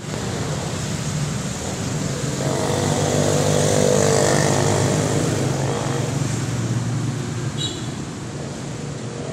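Street traffic with motorcycle engines running; a motorcycle-sidecar tricycle passes close by, growing loudest about four seconds in and then fading.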